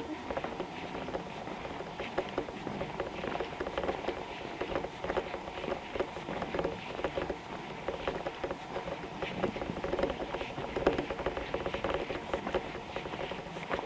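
Footsteps of a walker on a paved road, a continuous patter of steps.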